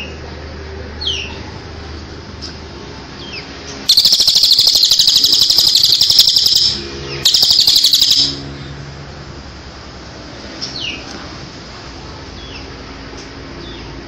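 Cililin and ciblek (bar-winged prinia) songbirds singing: scattered short falling chirps, then about four seconds in a loud, very fast trill lasting nearly three seconds, followed by a second, shorter burst of trilling about a second later.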